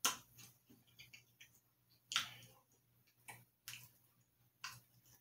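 A person chewing a soft chocolate cookie with Tootsie Roll buttercream: about five sharp, wet mouth clicks and smacks at uneven gaps, the loudest right at the start and about two seconds in.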